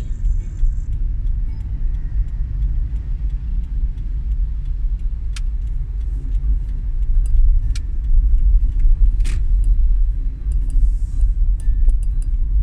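Steady low rumble of a vehicle travelling on a road, with scattered sharp clicks and ticks over it.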